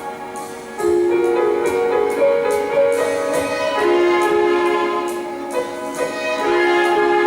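Live music from a piece for piano and estrada-symphony orchestra: long held melody notes over a full accompaniment, with a new phrase swelling in about a second in.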